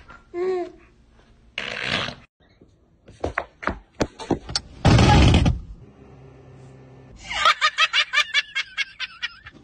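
A few sharp knocks and a loud, brief noisy burst, then a woman laughing hard in quick repeated pulses for about two seconds near the end.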